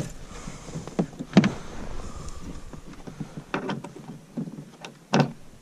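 Scattered sharp knocks and clicks of gear being handled and fastened, the loudest about five seconds in. The outboard is not running.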